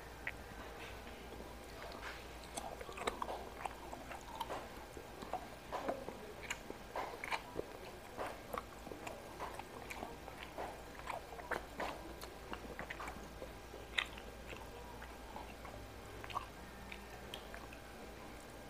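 Close-miked chewing and biting of a person eating rice and dried fish by hand: irregular wet smacks and small clicks, busiest through the middle, with one sharper click about three-quarters through.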